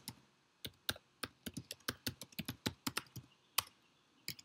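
Typing on a computer keyboard: quick, irregular key clicks, starting just over half a second in, with a brief pause near the end.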